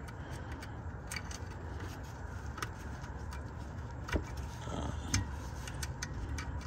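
Scattered small clicks and taps from a gloved hand working the Fumoto oil drain valve and its plastic locking clip, over a steady low rumble.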